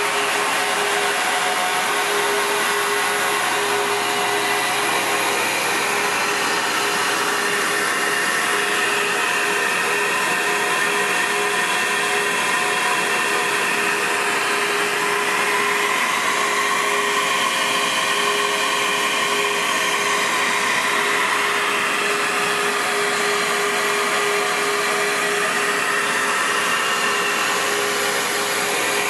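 SuperFlow SF-600 flow bench running steadily, its motors drawing air through a CNC-ported Edelbrock cylinder head's intake port at 0.600-inch valve lift. It is a loud, even rush of air with a constant hum-like tone through it. The port is flowing about 306 CFM.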